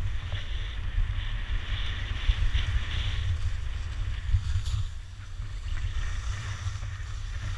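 Wind rumbling on a GoPro's microphone during a downhill ski run, over the hiss of skis sliding on packed snow. The hiss is stronger in the first few seconds.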